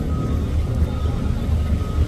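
Low, steady engine rumble, as of a truck or other vehicle engine running, with a thin steady whine above it.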